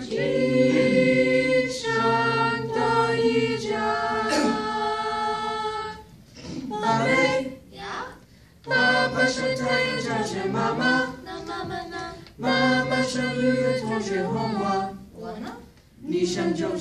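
A class of high school students singing a Chinese song together, unaccompanied, with short breaks between phrases.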